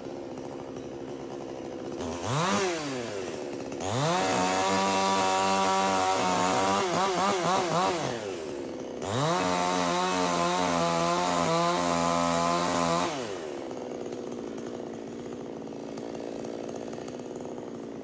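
Chainsaw idling, revved briefly about two seconds in, then run at full throttle for about four seconds with its pitch dipping and wavering near the end. It drops back to idle, runs at full throttle again for about four seconds, then settles back to idle.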